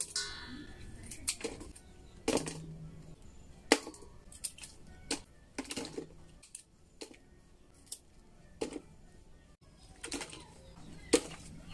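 Scissors snipping roselle calyxes off their stems: sharp, irregular clicks about once a second, with light knocks as the calyxes drop into a stainless steel bowl.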